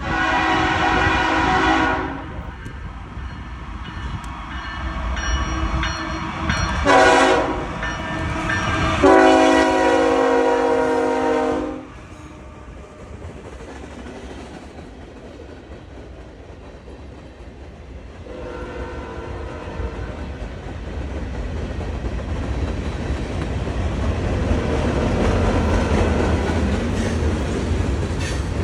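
Norfolk Southern freight locomotive's air horn sounding four blasts: a long one at the start, a short one about 7 seconds in, a long one ending about 12 seconds in, and a weaker one around 19 seconds. The low rumble and rail clatter of the approaching train then grow steadily louder.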